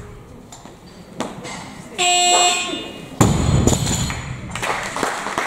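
An electronic buzzer sounds for under a second about two seconds in: the referees' down signal, meaning the lift is accepted. About a second later comes the loud thud of a 64 kg barbell with rubber bumper plates landing on the lifting platform.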